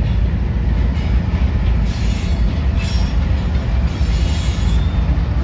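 Freight train rolling through the rail yard: a steady low rumble, with a brief high wheel squeal about two to three seconds in.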